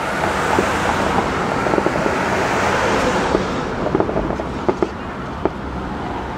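Fireworks going off: scattered sharp pops and crackles over a rushing noise that swells, then thins out about three seconds in.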